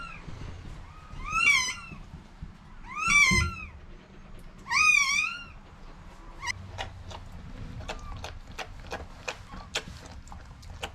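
Newborn border collie puppies squealing: three thin, high, arched mewing cries, followed from about six seconds in by a run of quick faint clicks.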